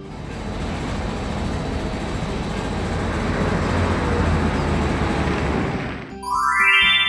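Cartoon sound effect of a vehicle engine running: a rough, noisy sound that swells and then fades out about six seconds in. A bright rising chime follows near the end.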